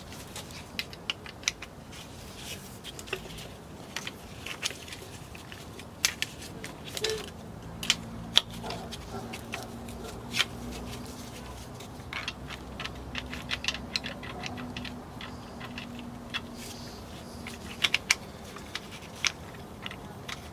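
Irregular light metallic clicks and taps as small engine parts and hand tools are handled and fitted during a balance shaft timing chain install, with a few sharper knocks.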